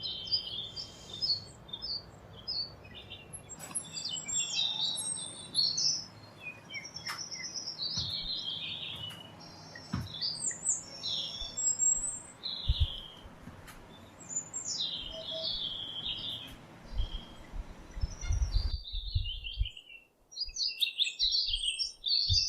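Birds chirping and singing in quick, repeated short calls and trills, with a few faint clicks and some low thuds near the end.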